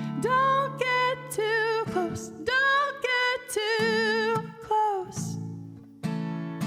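A woman singing with vibrato over strummed acoustic guitar chords; her voice stops about five seconds in, leaving the guitar alone.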